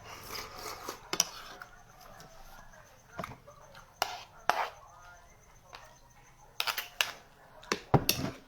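Eating noises: several sharp clicks and knocks, scattered irregularly, over low mouth sounds.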